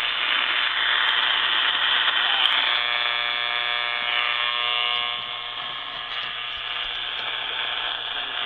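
Radio receiver hiss and static from a weak, iffy signal, with a steady low hum underneath. Faint steady tones come through the hiss from about three seconds in.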